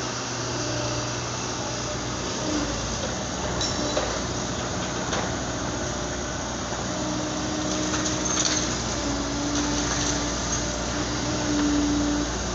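Liebherr 924 crawler excavator working a demolition grab: its diesel engine runs steadily while a hydraulic hum steps up and down in pitch as the arm moves. A few short sharp knocks of breaking concrete and debris come through, around four, five and eight seconds in.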